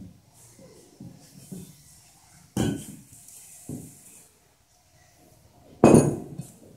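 Metal parts and tools clanking and knocking: a few light knocks, then two loud ringing clanks, one about two and a half seconds in and one near the end.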